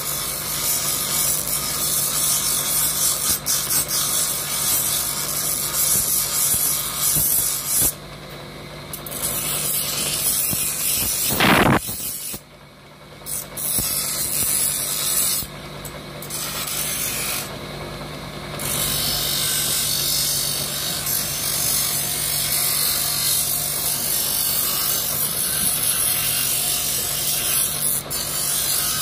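Bench grinder running with a steady hum while a strip of buffalo horn is pressed against its grinding wheel, making a harsh grinding hiss. The hiss stops briefly several times between about eight and nineteen seconds in, as the piece comes off the wheel. A single sharp knock about eleven seconds in is the loudest sound.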